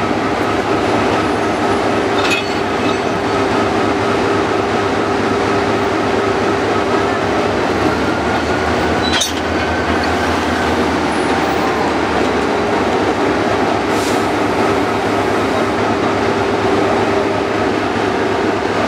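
Diesel locomotive engine running steadily as the locomotive creeps up to a passenger car for coupling, with a few sharp clicks about two, nine and fourteen seconds in.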